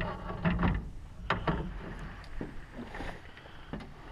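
Scattered knocks and clatter on a fishing boat, with one sharp knock near the start and a pair about a second and a half in, as a landing net and a caught trout are handled aboard, over a low rumble.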